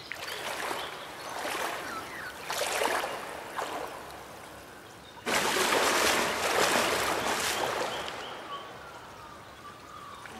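Water splashing in a cold spring pool as someone moves about in it: a few short splashes, then a sudden, bigger splash about five seconds in that lasts a couple of seconds and dies away.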